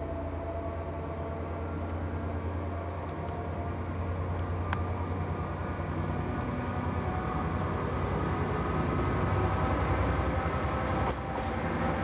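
Diesel locomotive engine drone as a train approaches, growing steadily louder, with one sharp click about five seconds in.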